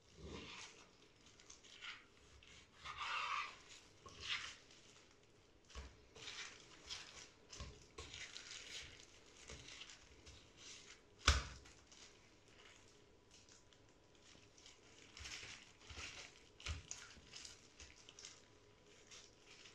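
Chef's knife slicing raw beef on a wooden cutting board: quiet, intermittent cutting and handling strokes, with one sharp knock against the board about eleven seconds in.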